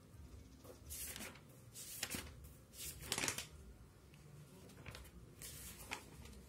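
A handful of short rustling, scraping noises of paper being handled, the loudest about three seconds in.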